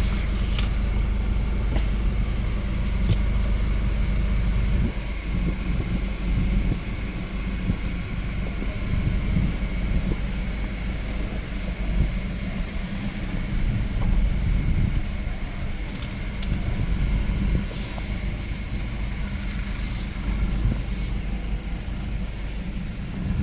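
A Nissan Patrol's ZD30 four-cylinder diesel engine running steadily, with a thin steady whine above the low rumble and a few light clicks.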